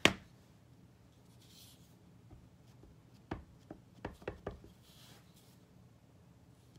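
Stamping supplies handled on a craft desk: a sharp clack at the start, then a few light taps about three to four and a half seconds in and soft paper rustles as a card and a clear acrylic stamp block are moved about.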